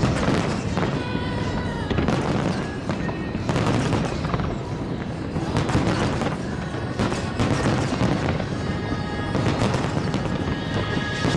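Aerial fireworks shells bursting one after another, sharp bangs every second or so over a continuous rumble and crackle, with music playing alongside.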